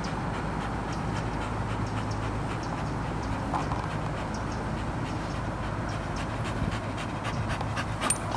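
Staffordshire bull terrier panting with its mouth open, over a steady low hum.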